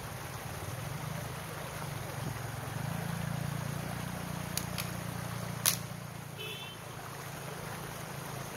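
Steady rushing of a stream spilling over rocks, with three sharp cracks of sticks being snapped or struck for firewood a little past halfway, the last the loudest.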